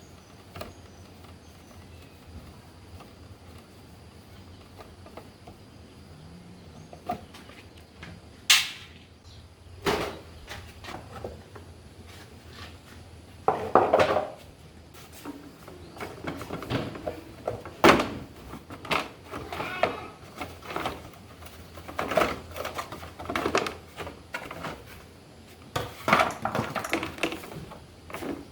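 Irregular clinks and knocks of tools and metal parts being handled. They are sparse at first and come more often in the second half.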